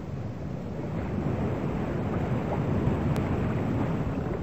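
A steady, low rushing noise that rises a little in the first second and then holds, with a faint click about three seconds in.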